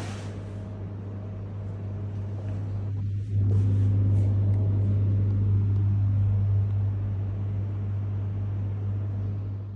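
A steady low hum over a rushing noise, which gets louder about three seconds in.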